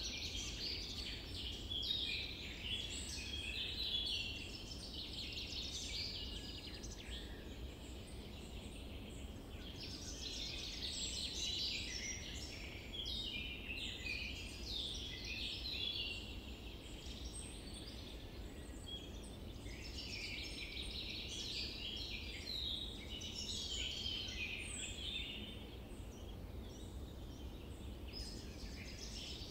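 Birds chirping and twittering in repeated bouts of many short high notes, over a steady low rumble.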